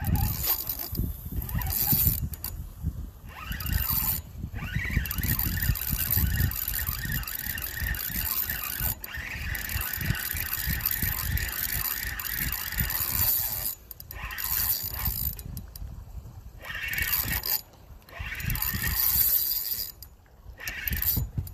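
Spinning fishing reel being cranked, its gears whirring in spells with short pauses, over a low rumble of handling on the microphone.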